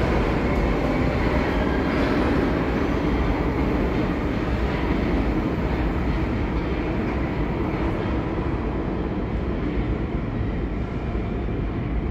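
A subway train pulling out of an underground station and running off down the tunnel: a steady rumble of wheels on rail that slowly fades, its higher hiss dropping away about two-thirds of the way through.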